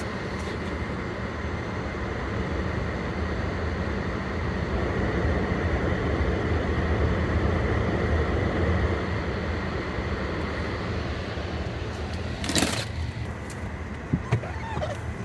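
Car running, a steady low rumble with road or engine noise that swells through the middle. A single sharp knock comes about three-quarters of the way in.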